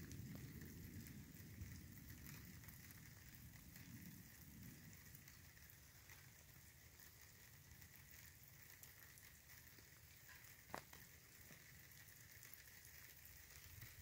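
Near silence: faint outdoor night ambience with a low rumble that fades away over the first few seconds, and a single short click about eleven seconds in.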